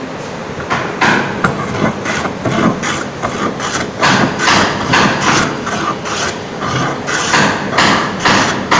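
Metal hand plane (jack plane) shaving a wooden board: a quick run of short rasping strokes, about two a second, starting just under a second in.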